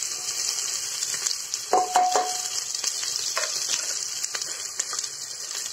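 Sliced onions sizzling steadily in hot oil in an aluminium pressure cooker. A few clinks sound over the sizzle, one about two seconds in ringing briefly.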